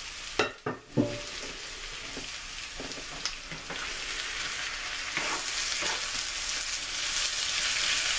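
Potatoes and onions sizzling in hot oil in a frying pan, the sizzle growing slowly louder. A few sharp knocks of a utensil against the pan come between half a second and a second in, with lighter knocks and scrapes of stirring later.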